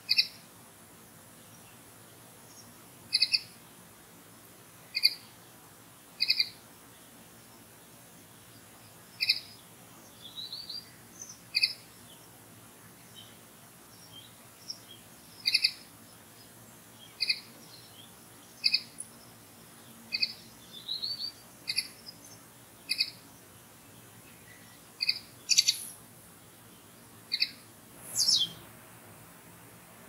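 Woodland songbirds calling: one short call note repeated every second or two, with softer twittering phrases now and then and a quick falling note near the end.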